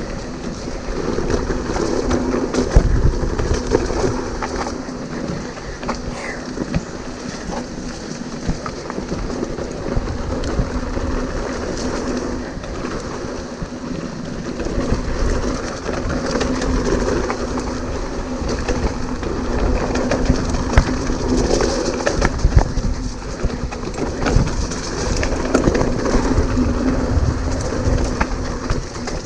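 Hardtail mountain bike riding fast down a dirt trail: steady wind rush over the camera microphone and tyre noise on dirt, with frequent knocks and rattles from the bike over bumps.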